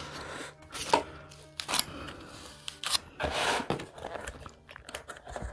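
Close-up eating sounds: several sharp clicks and short bursts of crisp crunching.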